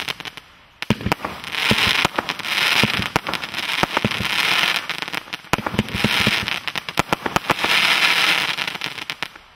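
Bandito firework firing a rapid string of sharp bangs as its shots go up and burst, with long spells of dense crackling from the glittering stars. There is a brief lull about half a second in, and the display dies away just before the end.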